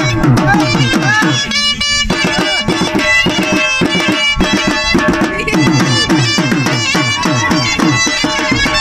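Dhol drum played live in a fast, even rhythm, about four to five bass strokes a second, each sliding down in pitch, together with a wind instrument playing a wavering melody.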